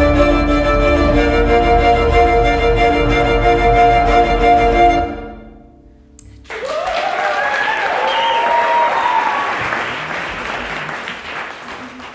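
Solo cello music: a held chord of several steady bowed notes that stops about five seconds in. After a short pause come sliding, bending bowed notes with scratchy bow noise, fading toward the end.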